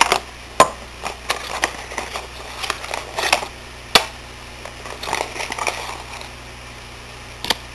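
Paper and plastic rustling and crinkling as an aquarium test kit's instruction booklet and packaging are handled, with a few sharp clicks.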